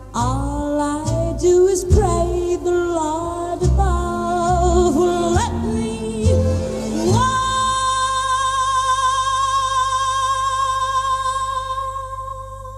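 A woman sings with a band accompanying her, then holds one long final note with vibrato from about seven seconds in. The note and the backing fade away near the end.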